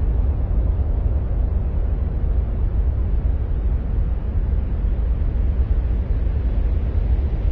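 Steady, deep rumbling noise with no breaks or changes, heaviest in the low bass and fading off toward the highs: an ambient noise track presented as the sound of Mars.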